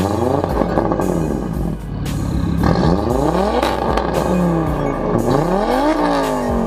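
Audi A5's tuned 2.0T turbocharged engine being free-revved while parked, the pitch climbing sharply and falling back about five times.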